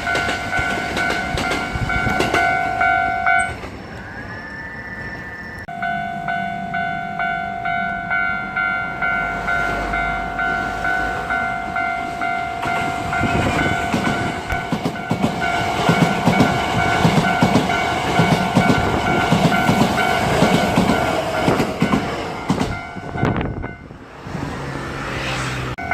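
A Japanese level-crossing alarm bell dings in a steady rhythm, about one and a half strikes a second, breaking off briefly about four seconds in. From about halfway, a Hankyu Takarazuka Line electric train passes with heavy rumble and wheel clatter. The bell falls silent for a moment near the end.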